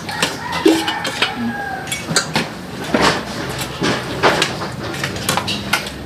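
Spoons and forks clinking and scraping against plates as several people eat, in scattered irregular clicks.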